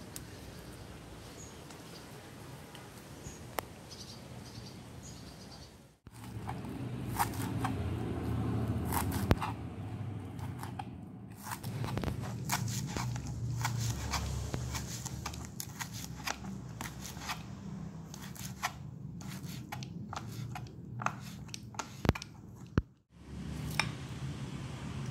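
Kitchen knife chopping Batak onions (lokio) and their green tops on a plastic cutting board: irregular sharp taps over a steady low hum.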